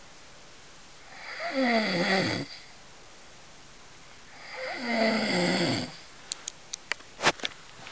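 A man snoring in his sleep: two long snores about three seconds apart, each sagging in pitch toward its end. A few short, sharp clicks follow near the end.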